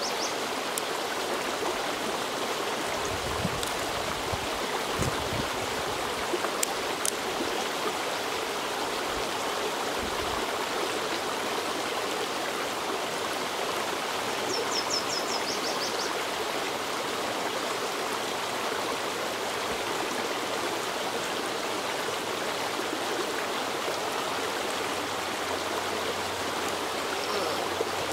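Small woodland creek running steadily over rocks and fallen branches.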